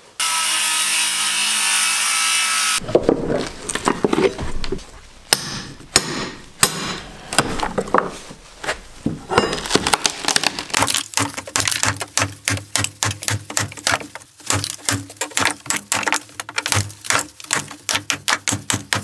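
Old hardwood floorboards being pried and torn up: a power tool runs steadily for about two and a half seconds at the start, then the wood cracks and knocks irregularly, and the second half is a fast run of short knocks and scrapes. The boards are hard and tightly nailed.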